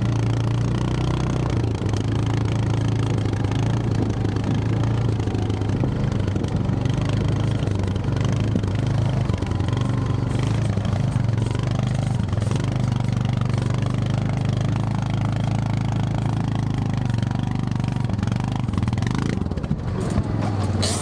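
ATV engine running steadily under way, with scattered knocks and rattles from riding over rough ground, most of them around the middle and near the end.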